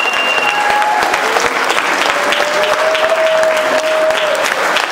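Audience applauding in a hall: a dense, steady patter of clapping. A single held note rises above it for about two seconds in the middle.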